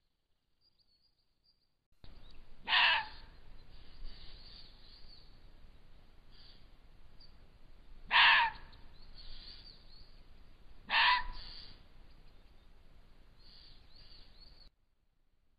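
Three short, loud animal calls a few seconds apart, the first about three seconds in, over faint forest background picked up by a camera trap's microphone.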